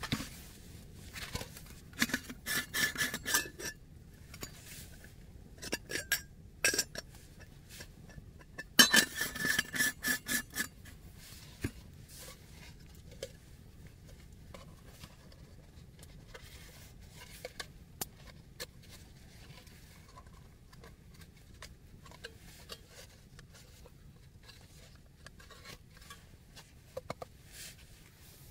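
Handling of small metal camp gear: an insulated metal tumbler set down and a compact folding table with a bamboo top and metal legs unfolded and set up, with clinks, rattles and rubbing. Two busy bursts of rattling come in the first half, then only scattered small clicks.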